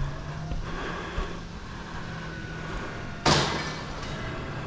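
Garbage truck engine running steadily, with one sudden loud bang about three seconds in that trails off over about half a second.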